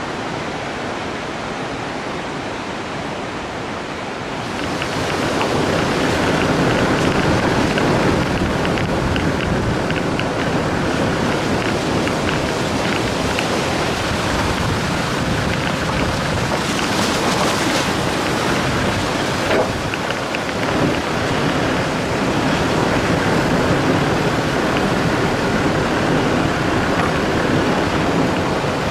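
Steady rushing noise of a swollen, muddy river in flood, growing louder about five seconds in and then holding even.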